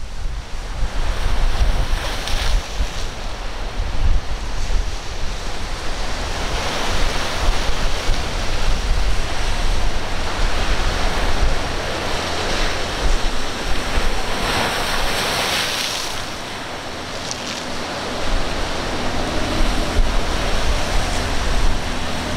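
Rough surf breaking and rushing at an inlet, with wind buffeting the microphone in a heavy low rumble; the wash swells and eases in surges. A faint steady low hum from a boat's engine comes in over the last few seconds as a boat runs close past.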